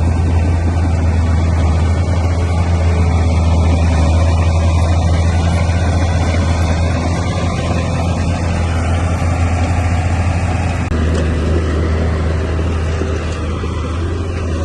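Komatsu D31P crawler bulldozer's diesel engine running steadily with a deep hum. Its note changes about eleven seconds in.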